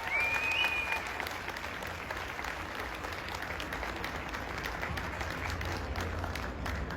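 Audience applauding, a dense patter of many hands clapping, with a short high-pitched call at the very start.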